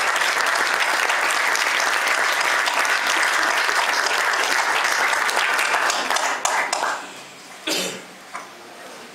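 Audience applauding, the clapping dying away about two-thirds of the way through, followed by a brief sharp noise from the room.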